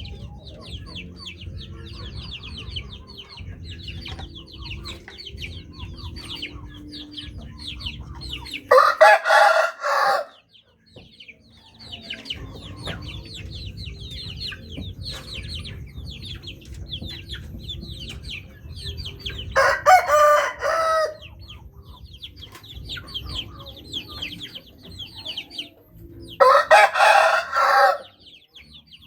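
Ayam bangkok rooster crowing three times, each crow loud and about a second and a half long, spaced roughly ten and then seven seconds apart. Between the crows, many short high chirps run continuously over a low rumble.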